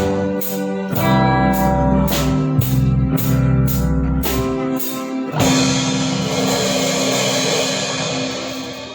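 A band playing a song on guitar, bass and drum kit with a steady drum beat, then ending on a held final chord with a cymbal crash about five seconds in that rings out and fades.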